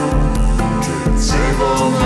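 A recorded rock song playing, with a steady beat and held chords.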